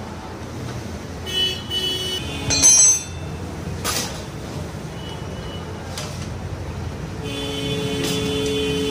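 Street traffic rumbling in the background with vehicle horns sounding: short honks about a second and a half and three seconds in, and a longer, louder honk near the end. A sharp metallic click comes about four seconds in.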